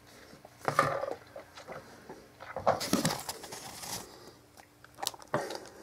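Handling noise: rustling and bumps as the camera is picked up and moved in close, with a few short sharp clicks near the end.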